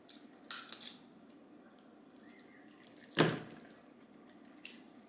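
Crab leg shells cracking and snapping as they are broken open and peeled by hand: a few quick sharp cracks about half a second in, a single louder crack or knock about three seconds in, and one more small click near the end.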